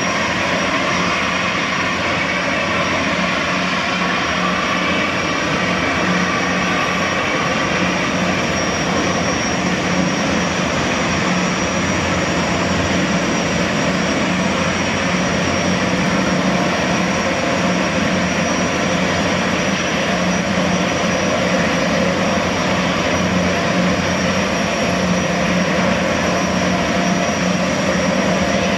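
Boeing Jetfoil's twin Allison 501-KF gas turbines running steadily at low power, a continuous turbine whine with a steady high tone, over water churning from the waterjets.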